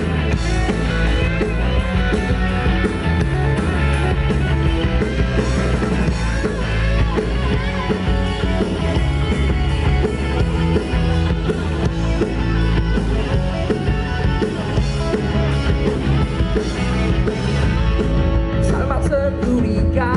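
Live rock band playing loud amplified music: electric guitar, bass guitar and drum kit.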